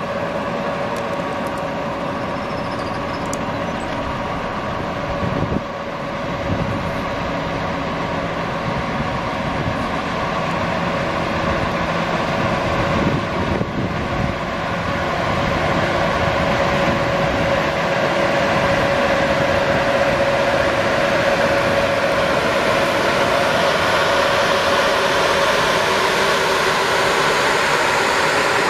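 ChS2T electric locomotive pulling out with a passenger train, its ventilation fans and traction motors giving a steady, jet-like whine that grows louder as it comes up and passes close.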